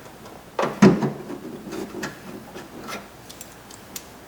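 Two quick knocks of a tool or part against the trunk metal just under a second in, then light scraping and scattered faint clicks as the lock cylinder's 10 mm retaining bolt is threaded back in.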